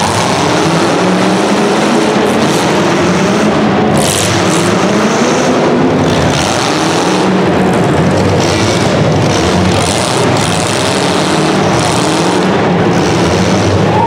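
Demolition derby car engines revving hard and continuously, their pitch rising and falling, with brief harsh noises among them.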